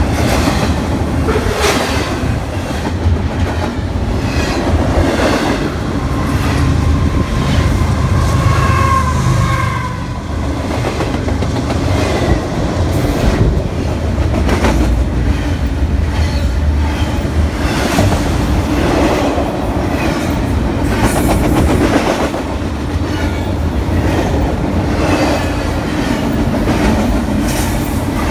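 Double-stack intermodal freight train of container-laden well cars passing at close range: steady rumble of steel wheels on rail with repeated clickety-clack as wheelsets cross rail joints. There is a short wheel squeal about a third of the way in.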